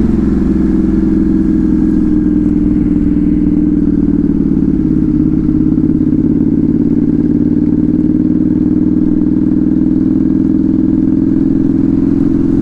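Motorcycle with a loud aftermarket exhaust running at a fairly steady engine speed, a continuous exhaust drone with only slight changes in pitch.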